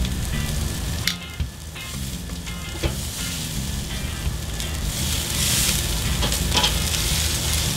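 Pork chops sizzling on the grate of a charcoal kettle grill, with a few sharp clicks of metal tongs as the chops are lifted and moved.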